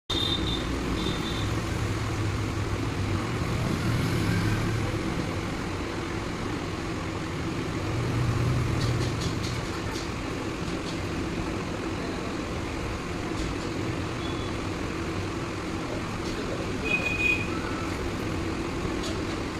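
Steady low rumble of street traffic and background noise, with a few short, faint high beeps near the start and near the end.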